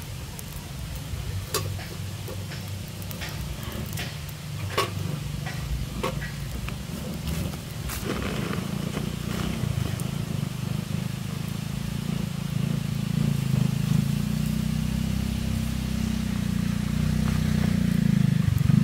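Wood campfire crackling with scattered sharp pops, over a steady low rumble that grows louder toward the end.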